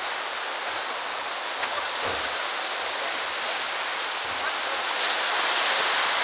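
Surf and churned water hissing around a boat's bow as it pushes out through small breaking waves; a steady rush of water, swelling a little about five seconds in as a wave breaks just ahead.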